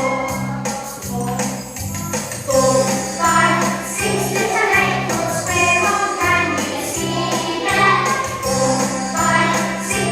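Music with jingling bells and choir-like singing.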